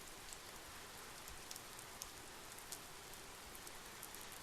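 Faint steady rain falling, an even hiss with scattered small drop ticks.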